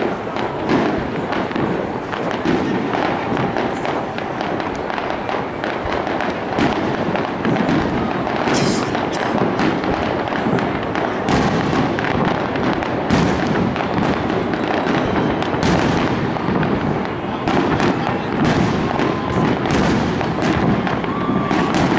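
Aerial fireworks display: shells bursting one after another in quick succession, a dense, unbroken run of bangs.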